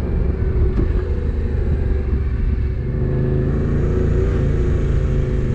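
Dual-sport motorcycle engine running at low revs as the bike slows to a crawl, a steady low rumble with a held engine note.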